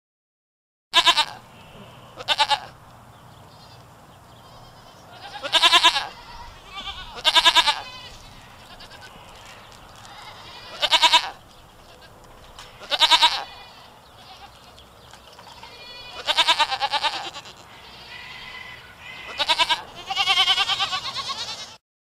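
Goats bleating, about nine separate quavering calls spaced a second or several seconds apart, with a faint steady background between them.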